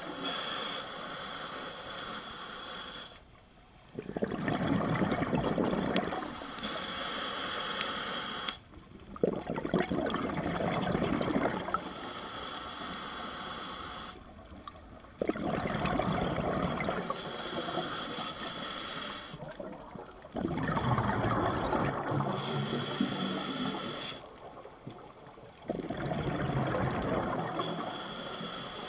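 Scuba diver breathing through a regulator: five bursts of exhaled bubbles, each lasting two or three seconds, come about every five to six seconds, with quieter inhalations between them, muffled through the camera's underwater housing.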